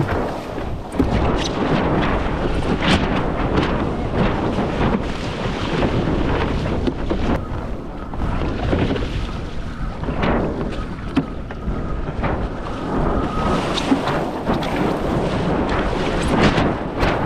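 Wind buffeting the microphone over water rushing and slapping against a windsurf board under sail, with frequent short splashes.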